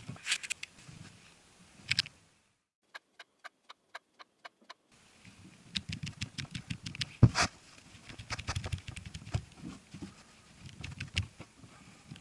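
Small clicks and scratchy handling noises from a camera body being handled, with one sharp louder click about seven seconds in. In the middle there is a stretch of near silence holding a run of evenly spaced light ticks, about five a second.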